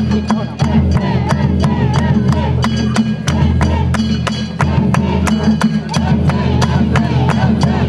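Japanese festival music (hayashi): a wavering bamboo-flute melody over a steady beat of drum and small metal gong strikes, with a continuous low hum beneath.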